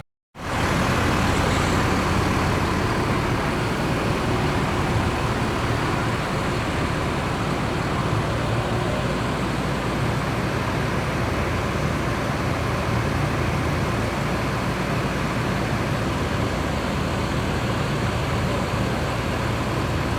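Steady traffic noise dominated by the low rumble of large bus engines, starting abruptly just after the start.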